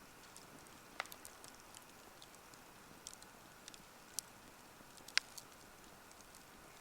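Campfire crackling: scattered small snaps and pops over a faint steady hiss, with two louder pops, about a second in and about five seconds in.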